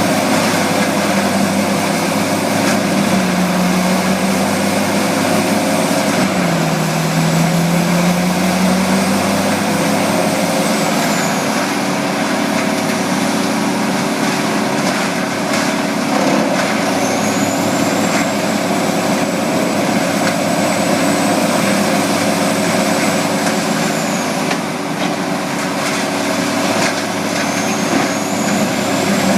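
Vermeer HG8000 horizontal grinder's 1050 hp engine running steadily. Its pitch sags briefly about six seconds in and then recovers, with a thin high whine rising and falling now and then.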